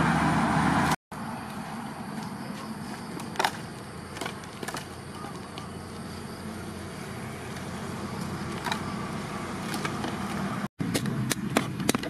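Split hardwood logs clunking now and then as they are stacked into a pile, over a steady background noise. Near the end a machete strikes kindling against a wooden board in a quick series of sharp chops.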